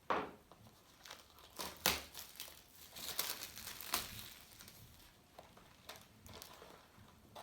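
Plastic shrink wrap on a box of baseball cards crinkling and tearing as it is cut open with a pocketknife, with a few sharp crackles, the loudest near the start, about two seconds in and about four seconds in.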